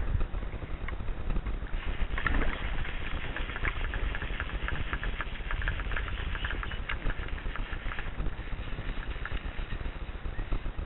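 Lake water lapping and splashing close against a belly boat: a patter of small splashes, busiest from about two seconds in to about eight seconds, over a steady low rumble.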